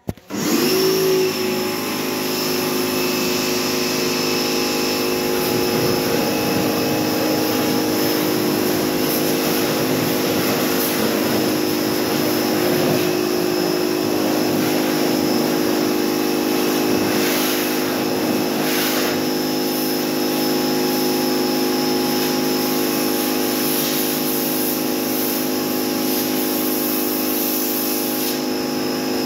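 Pressure washer starting up and then running steadily: a motor-and-pump hum with a hiss of high-pressure water spraying onto a van's body.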